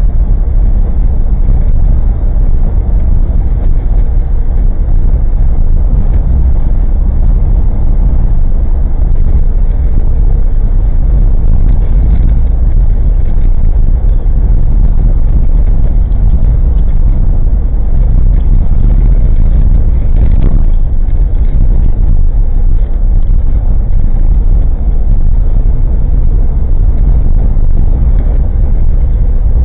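Engine and road noise of an old Suzuki Jimny kei car on the move, heard inside the cabin through a cheap dashcam microphone: a steady, loud low rumble with light rattling from the car's body and interior.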